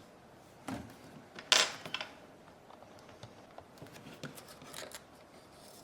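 Small clicks and short scraping rubs from handling small parts and tools during an iPod nano repair. The loudest scrape comes about one and a half seconds in, followed by scattered light clicks.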